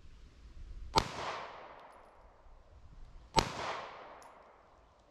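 Two 9mm pistol shots from a Walther PDP F, about two and a half seconds apart, each a sharp crack followed by an echo that dies away over a second or so.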